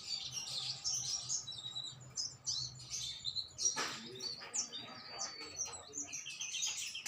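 Songbirds chirping and twittering in quick, overlapping high calls, with one long falling whistle about halfway through.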